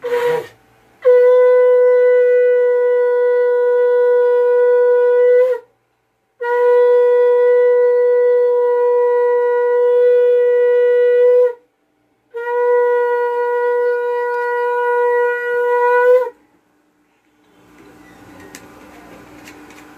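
Conch shell (shankha) blown in three long, steady blasts of about five seconds each, with short breaks between them. This is the auspicious conch call of a Bengali Hindu ritual.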